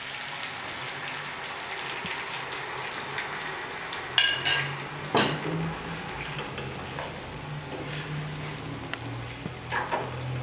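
Fried chicken pieces sizzling steadily in a frying pan as coconut milk is poured in, then stirred with a wooden spatula. A few sharp knocks of the spatula against the pan come around four to five seconds in, and once more near the end.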